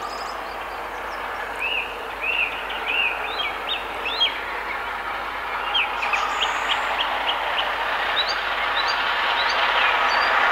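Peppercorn A1 class 4-6-2 steam locomotive 60163 Tornado approaching with a loaded train, its running sound growing steadily louder. Birds chirp over it, in two spells.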